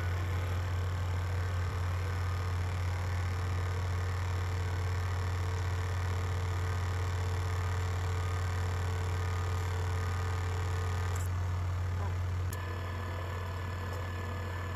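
Engine idling with a steady low hum. The hum drops slightly in level about twelve and a half seconds in.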